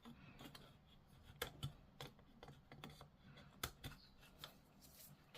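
Faint, irregular clicks and snips of hard plastic model-kit parts being cut from the sprue with clippers and handled.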